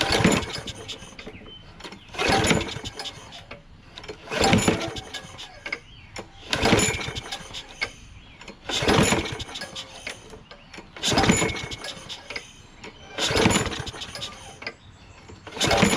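Briggs & Stratton Quantum push-mower engine being pull-started on its recoil rope about eight times, roughly one pull every two seconds, cranking over without catching. The owner thinks it may not fire because the priming fuel vapours escape out of the uncovered carburettor mouth instead of going into the intake.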